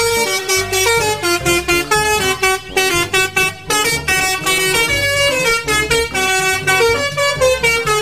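A coach's multi-tone musical air horn, the Indonesian 'telolet' kind, playing a fast tune of quickly changing notes, over a low rumble.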